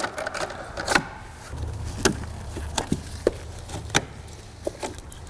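Scattered sharp plastic clicks and taps, about one a second, as electrical connectors on a car's engine wiring harness are handled and unplugged.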